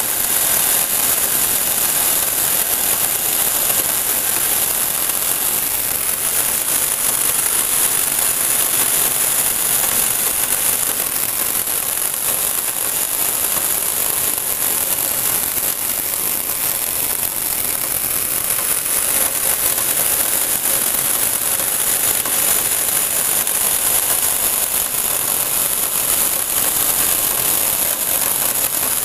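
Small brushed DC motor running steadily, driving a rubber belt that turns a Lego Technic pulley and crank: a continuous buzzing hiss with a high whine.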